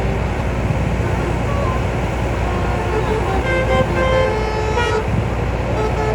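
Bus telolet horn playing a short tune of stepped notes from about three to five seconds in, over a steady rumble of engine and traffic.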